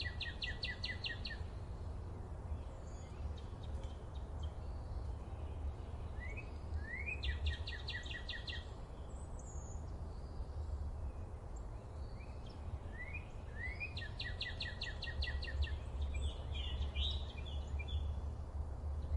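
A songbird singing the same short phrase three times, about seven seconds apart: two quick rising notes, then a fast run of repeated notes. Near the end comes a choppier series of notes, over a steady low rumble.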